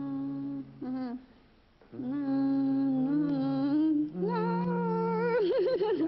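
Saxophone playing slow held notes: a short note, a brief one, then longer notes that step up in pitch about four seconds in, wavering just before the end. A lower steady tone sounds beneath them.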